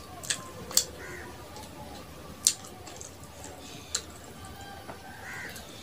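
Wet clicks and smacks of eating rice and fish curry by hand from a steel plate, four sharp ones spaced through the few seconds, over a steady low hiss.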